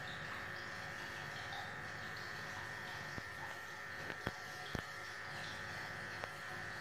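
Aquarium pump humming steadily with a buzzing tone, over the fizz of bubbles. A few sharp clicks come in a cluster from about three seconds in.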